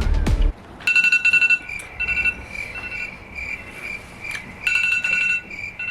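Electronic timer alarm beeping in a repeating pattern of high tones: the five-minute challenge timer going off. Background music cuts off about half a second in.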